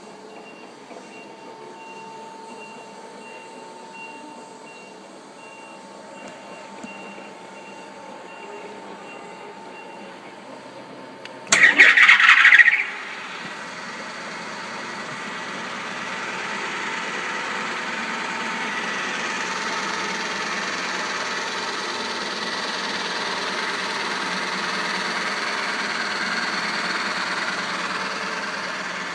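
A car's starter grinds harshly for just over a second, then the engine catches and runs, rising and settling into a steady idle. Before the start, a faint electronic beep repeats.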